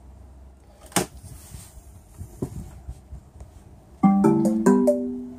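A sharp click about a second in, then near the end a short chime of a few quick ringing tones: an LG television's startup sound as the set powers on.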